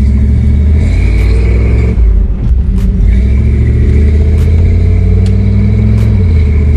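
Pickup truck engine heard from inside the cab while driving, accelerating. The engine note rises in pitch, drops about two seconds in, climbs again, then drops once more near the end.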